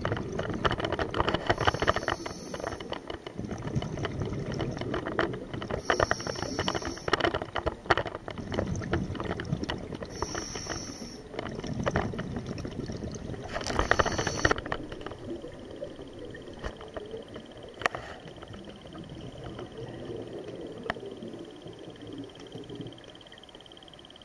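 Scuba diver's breathing recorded underwater: exhaled air bubbles rushing out of the regulator in four bursts about four seconds apart, with a bubbly rumble between them. After about fifteen seconds the bursts stop and only a quieter rumble and a faint steady high whine remain.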